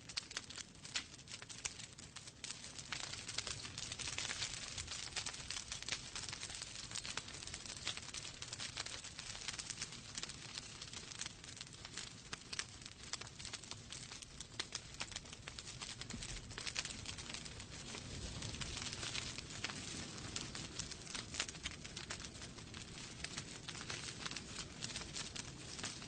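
Wood fire burning in a fireplace: dense, continuous crackling with frequent sharp pops over a soft hiss and low rumble of the flames.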